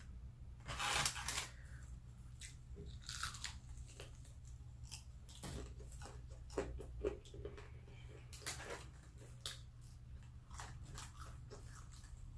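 A person chewing and biting food close to the microphone, with scattered crisp crunches and clicks and a few louder bites near the start, over a steady low hum.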